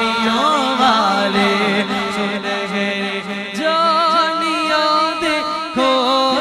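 Male voices singing a naat without instruments: a long held note with a drawn-out, ornamented melody over it. About three and a half seconds in, a fresh voice takes up the line with a strong wavering vibrato.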